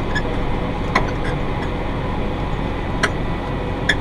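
Massey Ferguson 5610 tractor running steadily at field speed while pulling a John Deere 468 round baler, with four sharp clicks at uneven intervals. The clicking comes from the baler's pickup teeth, which the owner puts down to a bent tooth.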